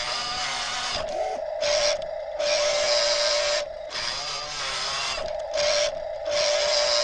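Electric drive motors and gearing of a radio-controlled toy wheel loader whining as it drives and pushes dirt with its bucket. The whirr starts and stops in short spurts every second or so as the controls are worked.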